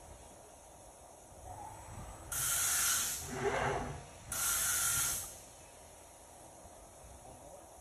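Fanuc RoboDrill Mate turret tool changer in the middle of a tool change: two loud hisses of compressed air, each about a second long and about two seconds apart. Between them a short mechanical whir sounds as the tool magazine indexes.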